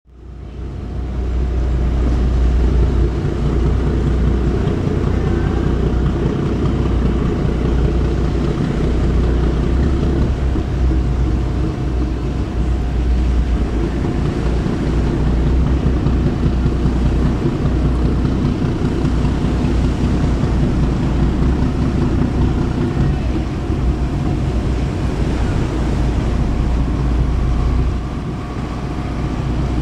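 Engines of an aluminium-hulled passenger boat running as it moves slowly past close by: a loud, steady, deep rumble that rises in over the first two seconds.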